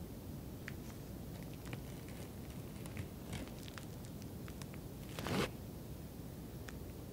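Quiet batter-handling sounds: soft scattered clicks and small squishy noises as cake batter is piped from a piping bag into a silicone mould over kabocha squash pieces. About five seconds in comes one brief, louder rasp.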